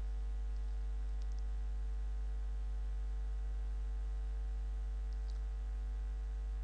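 Steady electrical mains hum picked up by the recording microphone, with faint mouse clicks about a second in and again about five seconds in.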